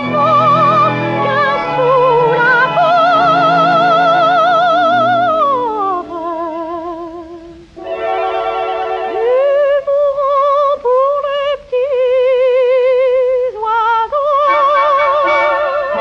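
Music from a 1938 78 rpm shellac record of a French music-hall song with orchestra: a high, wordless melody line held with wide vibrato. It glides down in pitch about five seconds in and quietens briefly, then comes back in short held notes over the accompaniment.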